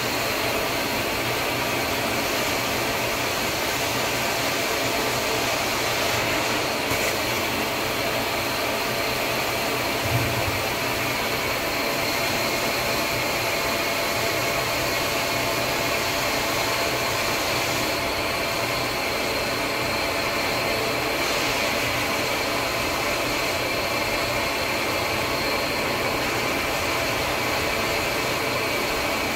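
Carpet-cleaning extraction machine running steadily: a constant rush of suction air with a steady high motor whine, and one brief low thump about ten seconds in.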